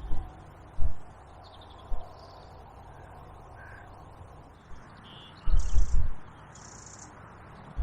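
Wind gusting on the microphone in several short buffets, the longest a little past halfway, with birds calling in the background.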